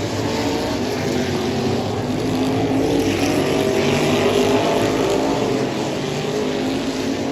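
Race car engines running at speed on an oval track, their pitch rising and falling as the cars accelerate and back off through the turns.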